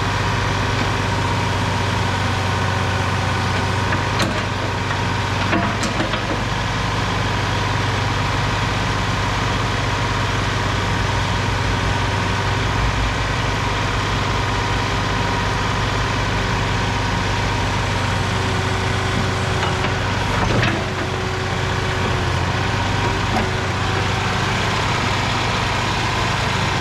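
Mini excavator engine idling steadily, with a few short metal knocks.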